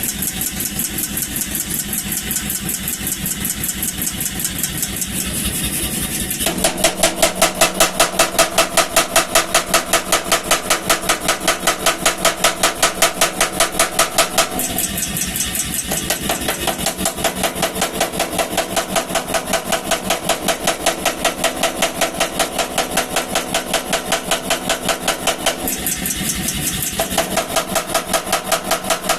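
Power hammer running with a fast, even train of blows while forging steel. About six seconds in, the blows turn louder and more ringing, and twice they drop back briefly before picking up again.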